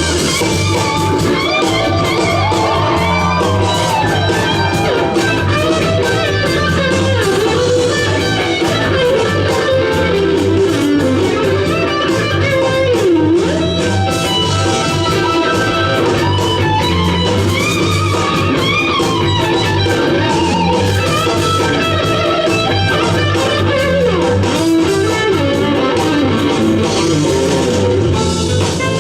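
Live jazz-fusion band playing an instrumental, with a lead electric guitar bending and sliding between notes over bass and drums.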